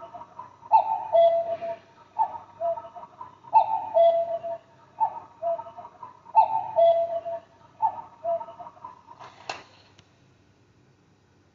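Cuckoo wall clock sounding its two-note "cuck-oo" call about six times at an even pace, each a short higher note falling to a longer lower one. A single sharp click near the end, then the calls stop.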